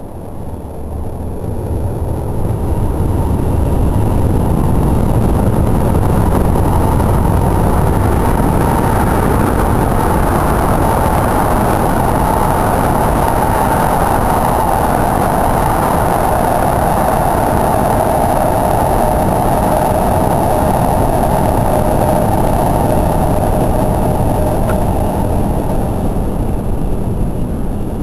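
Shinkansen bullet train passing, a loud steady rush of wheels and air that builds over the first few seconds, holds, and eases off slightly near the end.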